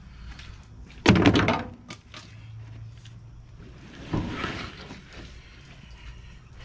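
A heavy thunk with a short rattle about a second in, then a softer knock and scrape around four seconds: a large alligator gar and the tools being handled on a board in a pickup bed during cleaning.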